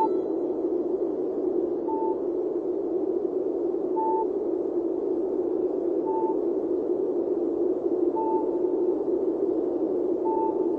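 Electronic sound effects: a steady windy whoosh with a short high beep repeating about every two seconds, like a sonar ping.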